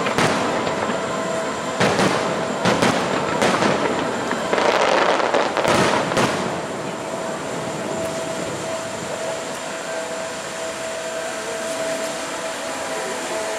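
Fireworks bursting: a string of sharp booms and crackles over the first six seconds, thickest around five to six seconds in, then a steady rumble with a held tone.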